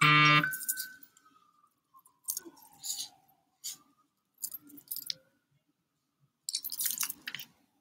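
Hands working hair and handling a small styling item, making scattered rustles and light clicks, busiest near the end. It opens with a short vocal sound, and a faint whistle-like tone rises and falls over the first few seconds.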